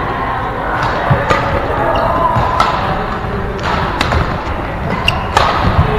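Badminton rackets striking a shuttlecock in a doubles rally: a series of sharp hits at irregular intervals, including a jump smash about four seconds in, with players' footfalls thudding on the court.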